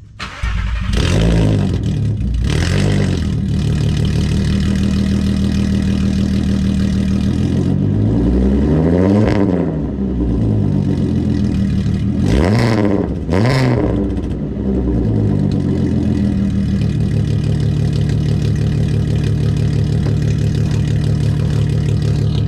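Volkswagen Mk4 GTI's 24-valve VR6 engine, fitted with downpipes, a cat delete and a straight pipe, starting up loud about half a second in. It is blipped a couple of times, revved up and back down once about nine seconds in, blipped twice quickly around thirteen seconds, then settles to a steady idle.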